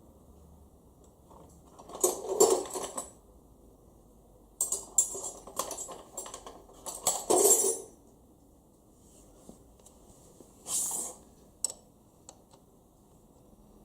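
Small metal parts and tools clinking and rattling as they are handled, in three bursts with a few single clicks.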